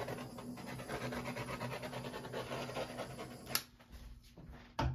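A handheld heat tool runs with a steady, breathy rush and a faint hum as it is passed over the wet acrylic paint to pop surface bubbles. It cuts off with a sharp click about three and a half seconds in, and a second click comes near the end.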